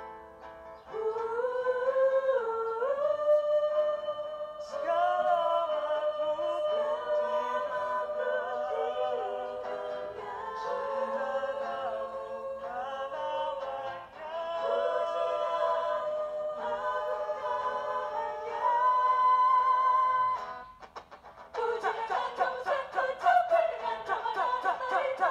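Mixed vocal group of men and women singing in close harmony through microphones, holding long chords in phrases. About 21 seconds in they pause briefly, then go into a livelier passage with fast-moving voices.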